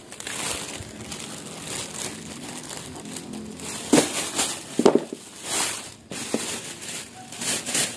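A plastic bag crinkling and rustling as a bunch of petai pods is handled in it, with a couple of sharper knocks about halfway through.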